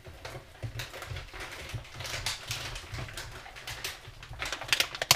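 Handling noise from plastic packaging being rustled and crinkled, with scattered light knocks that come thicker near the end.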